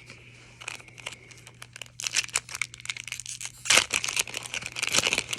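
Hockey trading cards and their foil pack wrapper being handled, giving irregular crinkling and rustling that gets busier after about two seconds.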